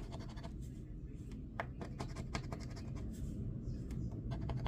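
Scratch-off lottery ticket being scratched: quick runs of short scraping strokes with brief pauses between them.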